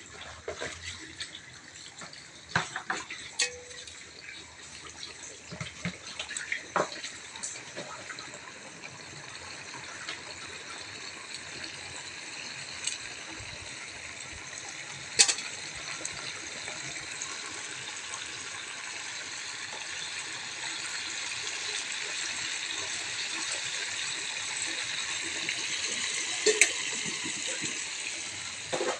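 Tuna steaks frying in oil in a pan, a steady sizzle that swells gradually louder as the pan heats. A few sharp clicks and knocks come in the first several seconds, with one sharp click about halfway through.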